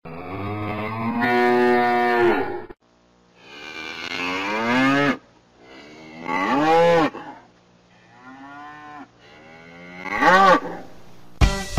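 Cattle mooing: about five separate long calls with short gaps between them, some sliding up and down in pitch, the fourth fainter than the rest. A band with strummed guitar and drums comes in just before the end.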